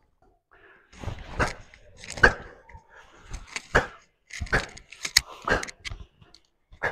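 Karate kihon performed at full speed: about ten sharp snaps and thuds, a half second to a second apart, from the gi cracking and bare feet striking and stepping on foam mats through a series of strikes, blocks and a back kick (ushiro geri). Each one echoes briefly in the bare hall.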